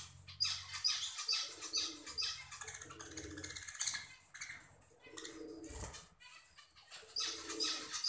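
Budgerigars chirping and chattering in quick, high, repeated calls, with small clicks as a budgie pecks and cracks seeds at the bowl.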